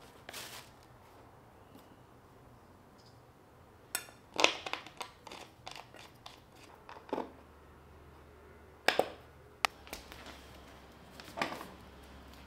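Plastic and metal parts of an office chair clicking and knocking as they are handled and fitted during assembly: a cluster of clicks and knocks about four seconds in, then a few single sharper knocks later.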